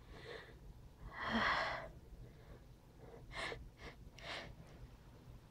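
A person's faint breathing as a sneeze builds up: one longer breath about a second in, then three short quick breaths a couple of seconds later.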